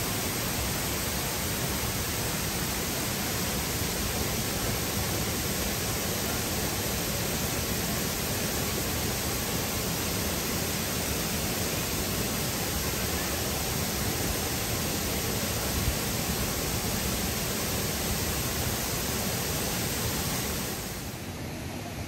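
Waterfall plunging into a pool: a steady, even rush of falling water, dipping about a second before the end.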